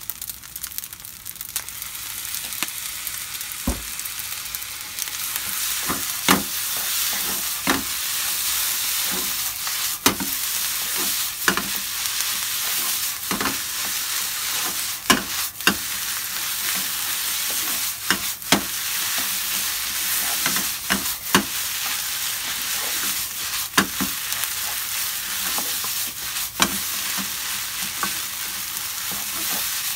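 Ketchup-coated rice with sausage sizzling in a nonstick frying pan as it is stir-fried with a wooden spatula. The sizzle builds over the first few seconds, and the spatula knocks and scrapes against the pan every second or two.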